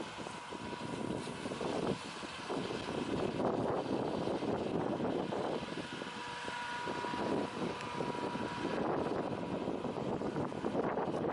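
Engines of a self-propelled forage harvester-baler and a tracked bale wrapper running as they work a rice field: a continuous machine noise that swells and fades.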